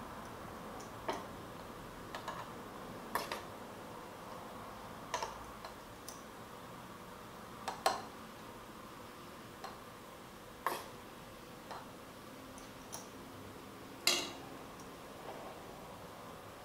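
Metal spoon clinking against a stainless steel bowl and a small glass jar as diced melon is spooned into the jar: about a dozen light, irregular clinks, the loudest two about 8 and 14 seconds in.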